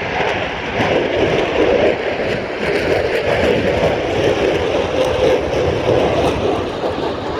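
Loud, steady jet noise from an F-22 Raptor's twin Pratt & Whitney F119 afterburning turbofans as the fighter flies its display.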